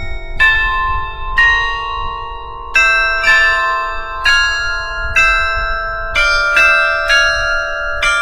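The tuned bells of Riga City Hall's tower chiming a slow melody, one struck note about every half second to second. Each note rings on and overlaps the next.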